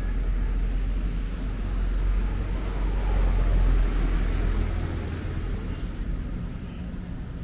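A motor vehicle passing close on a city street: a low engine and road rumble that builds to a peak about halfway through, then fades away.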